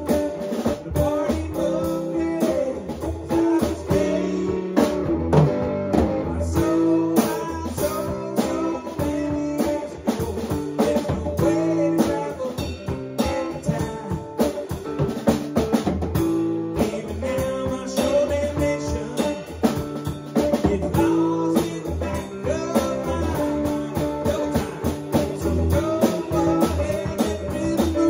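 Live band playing a song together: a drum kit keeping a steady beat under guitar.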